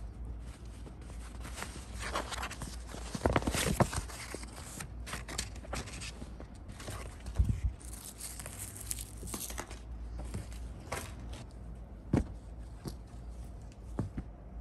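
Rustling and scraping of a modal-fabric pajama set being unfolded and handled by hand, with a few short knocks, the loudest about three and a half, seven and a half, and twelve seconds in.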